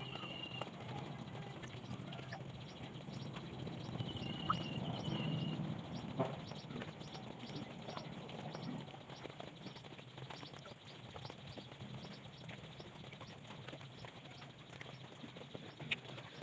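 Steady background noise with two short, high bird-like chirps, one at the start and one about four seconds in, and a faint regular ticking about twice a second through the middle.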